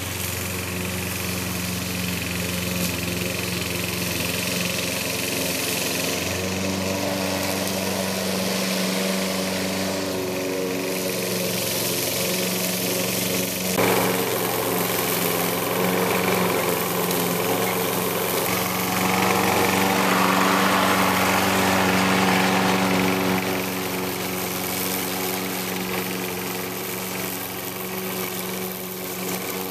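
Gas-powered walk-behind rotary lawn mower running steadily while cutting grass, its engine holding one even pitch, with a short knock about halfway through.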